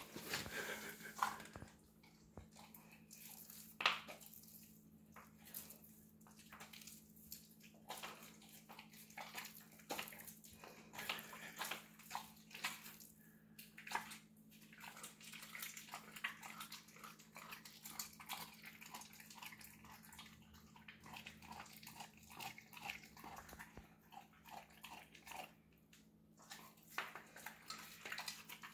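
A dog eating a raw T-bone steak: irregular, faint wet chewing, licking and tearing at the meat, with sharper clicks of teeth now and then.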